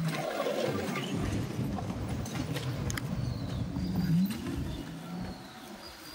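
Wind rumble and road noise picked up while riding a scooter along a street, with a short rising whine about four seconds in.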